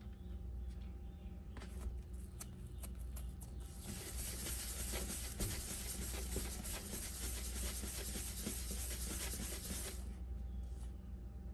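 A ball of bread dough rolled in circles under a hand on a bamboo cutting board: a steady scratchy rubbing for about six seconds that stops abruptly, after a few light taps and clicks.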